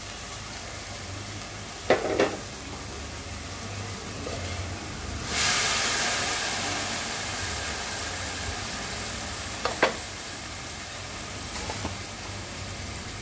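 Cut vegetables sizzling in a little hot oil and leftover water in a stainless steel pot. The sizzle jumps sharply louder about five seconds in as they are stirred, then slowly dies down; a spatula knocks against the pot twice, near the start and about ten seconds in.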